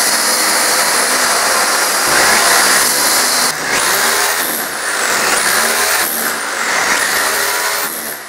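A Crain Super Saw undercut saw with a diamond blade runs steadily, cutting into the bottom course of a brick hearth. About three and a half seconds in, it gives way to an electric hammer drill with a chisel bit chipping out the cut brick. The drill's motor speeds up and slows down several times.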